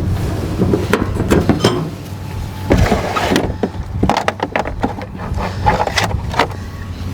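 Irregular clinks, knocks and clatters of metal tools and parts being handled, coming thick and fast in the middle of the stretch, over a steady low hum.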